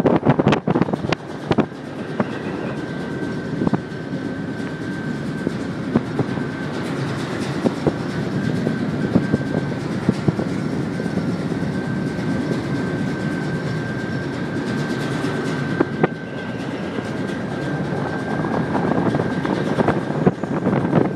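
A ferry's engines and machinery rumbling steadily, with a thin high whine held above the rumble, heard from the open deck. Wind buffets the microphone in the first couple of seconds.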